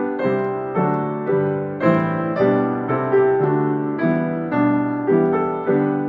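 Upright piano playing a hymn tune in full chords, about two chords a second, each struck chord ringing and fading before the next.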